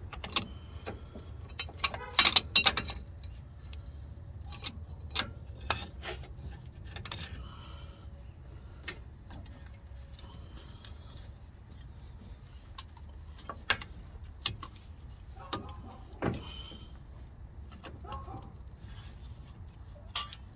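Metallic clinks and clatter of hand tools on a rear brake caliper as its piston is pressed back in. A burst of clattering comes about two seconds in, then sparse single clicks, over a steady low hum.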